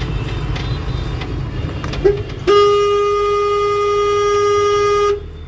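A vehicle horn gives a short toot about two seconds in, then is held steadily for about two and a half seconds, loud over the low rumble of the truck's running engine.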